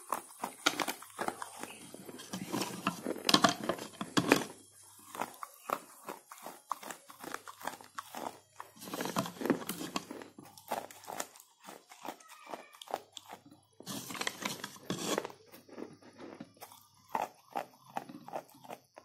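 Slate pencil being bitten and chewed: sharp, crackly crunches that come in dense clusters with short pauses between them.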